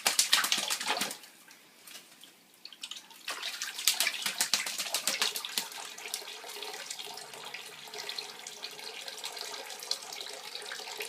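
Tap water running and splashing into a sink as a pet bird bathes under the stream. The splashing is loud for about a second, drops off almost to nothing for two seconds, then comes back as a steady spatter.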